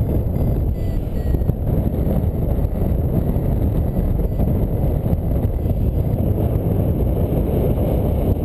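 Wind rumbling steadily over the camera microphone of a paraglider in flight, with a variometer giving short, faint beeps in the first second or so: the vario signalling a climb.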